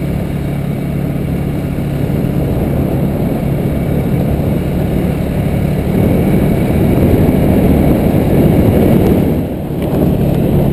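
Motorbike riding along a road: a steady engine hum under heavy wind rumble on the camera's microphone. It grows louder about six seconds in and dips briefly near the end.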